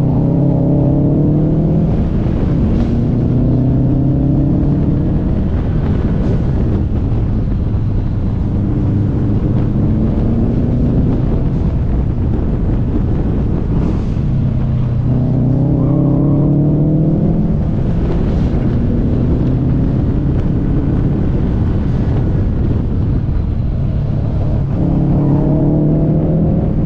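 Car engine pulling hard, its pitch rising over a few seconds and then dropping, again and again, as the car accelerates out of bends and eases off, over steady road and wind noise.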